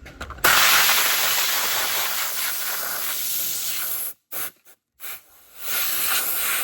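Compressed air hissing as it blows dirt out of a toolbox drawer. A long blast starts about half a second in and cuts off at about four seconds, followed by a couple of short puffs, then a steady blast again near the end.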